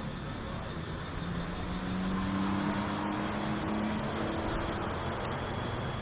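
A motor vehicle's engine passing by, its low note rising slightly and growing louder for a couple of seconds mid-way before easing off, over a steady outdoor hiss.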